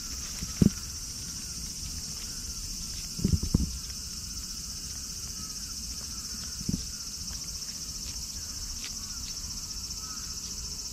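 Steady high-pitched chorus of insects, with a cat's faint wet licking at a lickable-treat pouch and a few dull bumps.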